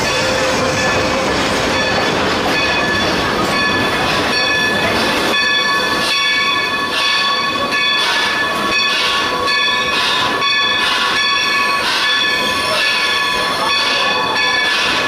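Train running through a rock tunnel: steady rolling noise of wheels on rail, echoing in the tunnel, with high squealing tones from the wheels that pulse in a fairly regular rhythm through the second half.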